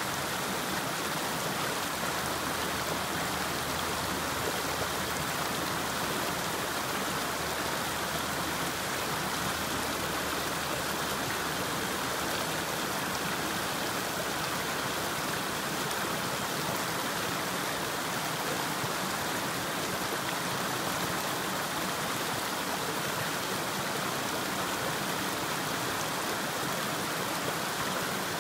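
Small rocky stream rushing and splashing over boulders in little cascades, a steady unbroken babble of water.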